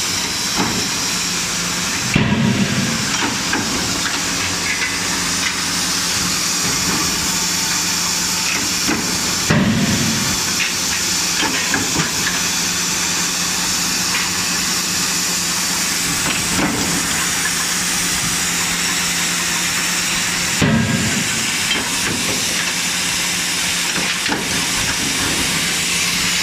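Forge-shop machinery running: a steady hiss and low hum, with a heavier press or hammer stroke about four times, several seconds apart, while hot forged chain links are trimmed in the presses.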